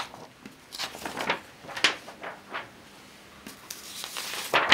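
Sheets of paper being handled on a desk: short rustles and light knocks, then a longer sliding rustle near the end as a sheet is drawn across the surface.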